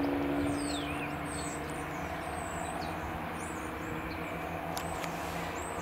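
Two-car Class 170 Turbostar diesel multiple unit approaching slowly round a curve, its underfloor diesel engines giving a steady drone.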